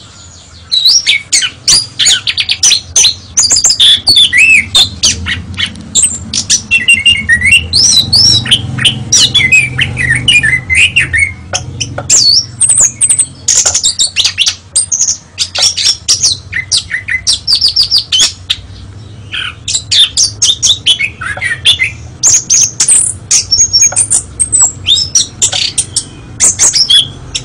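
Oriental magpie-robin (kacer) singing a loud, fast, varied song of whistled notes, rising and falling glides, harsh squawks and sharp clicks, with only short lulls. A faint steady low hum runs underneath.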